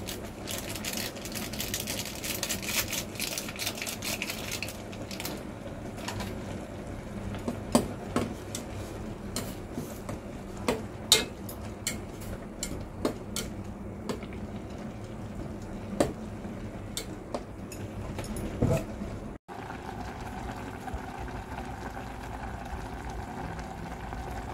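Chopsticks stirring instant noodles in a boiling stainless steel pot, clinking and knocking against the pot now and then over a steady bubbling hiss. After a brief break near the end, only the bubbling of the boiling pot goes on.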